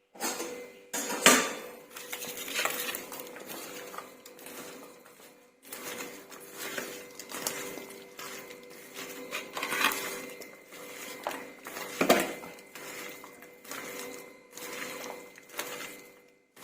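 Dishes and utensils clinking and knocking irregularly in a kitchen while minced chicken momo filling is mixed in a bowl, with louder knocks about a second in and again near twelve seconds.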